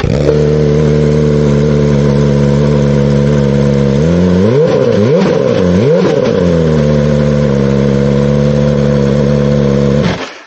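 2023 BMW M 1000 R's inline-four engine running with no muffler fitted, straight out of the open link pipe: idling steadily, revved twice about four to six seconds in, each rev rising and falling, then back to idle before it stops abruptly near the end.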